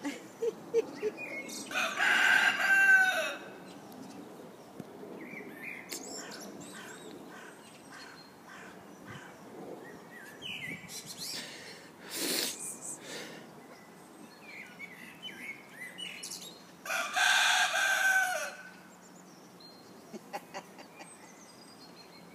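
A rooster crowing twice, each crow about a second and a half long and falling in pitch at the end, the two crows about fifteen seconds apart. Short faint bird chirps come in between.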